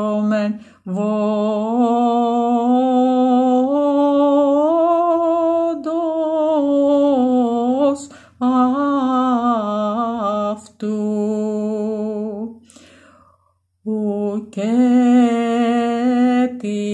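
A solo voice chanting Byzantine chant in the first mode, unaccompanied, drawing out long melismatic held notes on the word 'ακούσωμεν', the pitch stepping slowly up and back down. The singing breaks off for a breath about 13 seconds in, then resumes.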